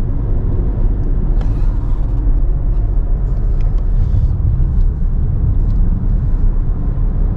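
Steady low rumble of a car on the move: road and engine noise.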